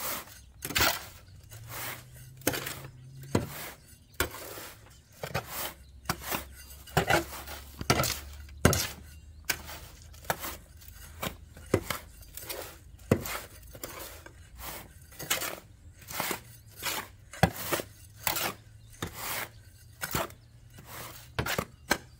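A garden hoe scraping and chopping through a mix of play sand, topsoil and wood ash in a steel wheelbarrow, with repeated strokes of the blade against the metal tub about once or twice a second.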